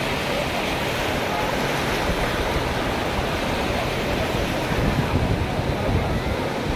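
Steady rush of sea surf washing up a sandy beach, with the voices of a beach crowd mixed in. Wind buffets the microphone in uneven low gusts from about the middle on.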